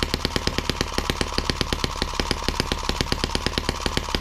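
M17B miniature single-cylinder water-hopper-cooled model engine running at a fairly high RPM on its first runs, giving a rapid, even string of sharp firing pops, several a second.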